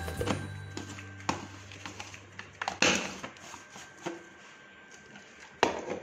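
Plastic mixer-grinder jar being handled and fitted onto its grinder base: a few scattered clicks and knocks, the loudest about three seconds in.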